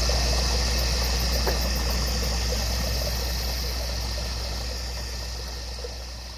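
A steady low engine-like hum under a steady high-pitched hiss, slowly fading out.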